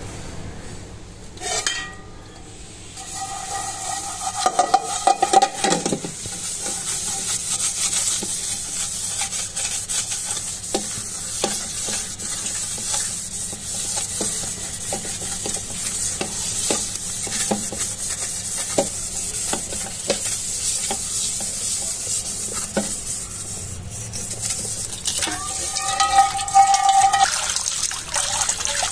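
Scrub pad scouring the inside of a stainless steel pan coated with dishwash-bar soap: a steady rasping hiss with many small ticks. Twice there is a brief pitched squeak, a few seconds in and again near the end.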